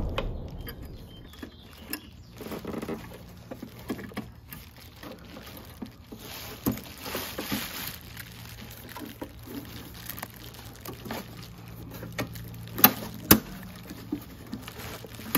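Hands fitting an HID bulb into a plastic headlight housing: scattered small plastic clicks and handling noise, with a rustle partway through. Near the end come two sharp clicks in quick succession.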